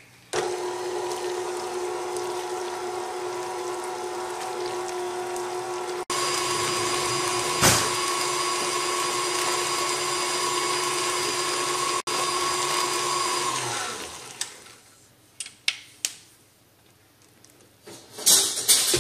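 Stand mixer's motor running with a steady whine as its wire whip beats cooked pinto beans into refried beans, louder from about six seconds in, with one sharp click near eight seconds. The motor stops around fourteen seconds, followed by scattered clicks and a wet squelching of the whip in the mashed beans near the end.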